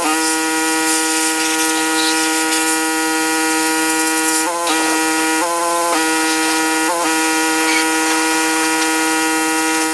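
Gas-engine pressure washer running with a steady, high-pitched drone over a hiss, the drone dipping briefly in pitch about four and a half, five and a half and seven seconds in.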